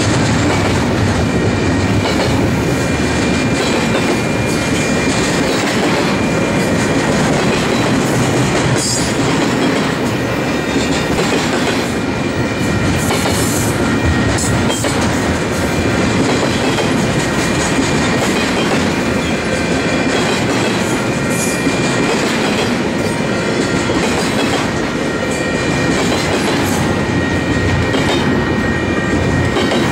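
Double-stack intermodal container cars rolling past: a loud, steady rumble of steel wheels on the rails with wheel clatter, and thin high ringing tones over it.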